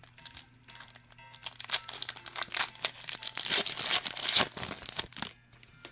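Foil wrapper of a Pokémon TCG booster pack crinkling and tearing as it is ripped open, a dense crackling rustle that is loudest near the end and stops abruptly.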